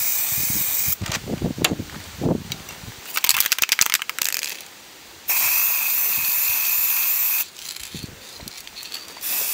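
Aerosol spray paint can spraying in steady hissing bursts: one ending about a second in, a longer one of about two seconds midway, and a third starting near the end. Between the first two bursts come a low rumble of wind on the microphone and a quick run of rattling clicks.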